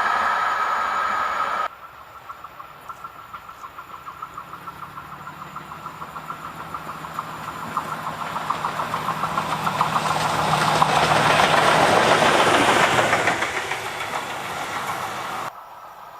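A train passing close by on the track. It approaches with a low steady hum and an even run of wheel clicks, rises to loud rolling noise, then fades and cuts off near the end. Before it, a louder rolling noise from a previous passing train cuts off abruptly about two seconds in.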